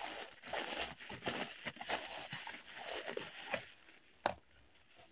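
Plastic bubble wrap crinkling and rustling as a handheld magnifying glass is pulled out of it. The crinkling stops after about three and a half seconds, followed by a single sharp click.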